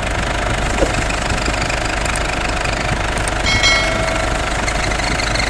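2009 Ford Everest engine running with the aircon compressor switched on, giving the noise that comes only with the aircon on, which the mechanic traces to the compressor's magnetic clutch. A brief metallic ring sounds about three and a half seconds in.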